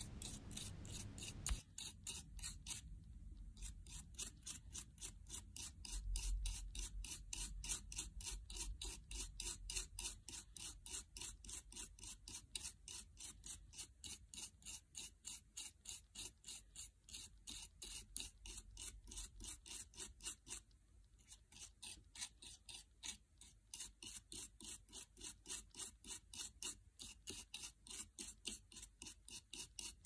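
Toothbrush bristles scrubbing caked dust off a laptop's cooling fan blades and housing: faint, rhythmic brushing strokes at about three a second, with a brief pause a little past the middle.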